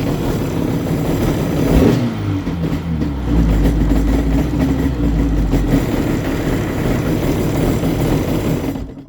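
Sea-Doo XP's 951 cc two-stroke twin idling with a loud noise from the jet pump, with a deeper rumble from about three to six seconds in; the sound cuts off suddenly just before the end.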